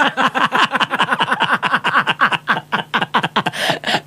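A man laughing heartily: a long unbroken run of quick ha-ha pulses, each falling slightly in pitch.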